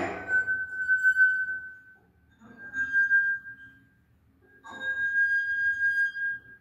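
Wine glasses partly filled with water, played one after another by rubbing a wet finger around the rim: three separate singing glass tones, each held for one to two seconds, at nearly the same high pitch, each starting with a brief rubbing noise.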